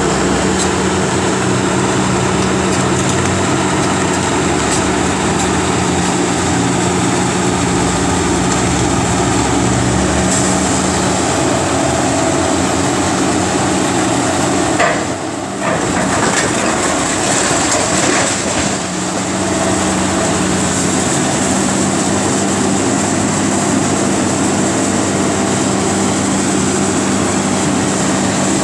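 Caterpillar 330B hydraulic excavator's diesel engine running steadily under load while its demolition grapple works a brick wall, with scattered crunching and clattering of breaking masonry.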